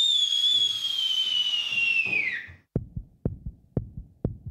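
A long, high whistle that holds one note and then sags in pitch and stops about two and a half seconds in. It is followed by a heartbeat, low double thumps at about two beats a second.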